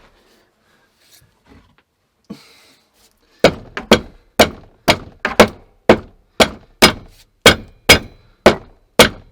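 A steady run of heavy blows on wood, about two a second, starting some three seconds in after a single light knock.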